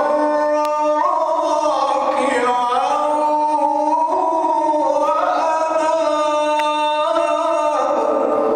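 A male Qur'an reciter chanting in the melodic tajweed style. He sings one long unbroken phrase of held notes that step up and down in ornamented turns, settling lower near the end.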